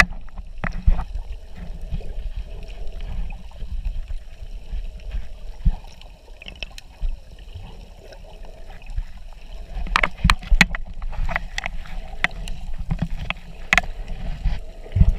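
Underwater sound picked up by a camera in its housing: a muffled, low rumble of water moving around the swimmer, with scattered sharp clicks and knocks, most of them between about ten and fourteen seconds in.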